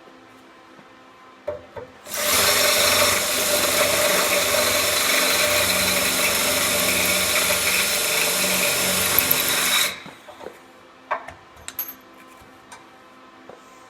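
Electric drill running steadily for about eight seconds, boring out the steel hole of a broken 5/16 bolt to tap-drill size, ready for new threads to be cut. A few light clicks and knocks of handling come before and after.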